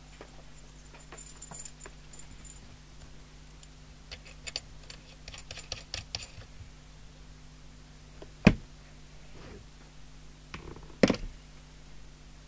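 Small metallic clicks and rattles as a coax plug is fitted and screwed onto a CB radio's antenna socket, followed by two sharp knocks as the gear is handled and set down. A low steady hum runs underneath.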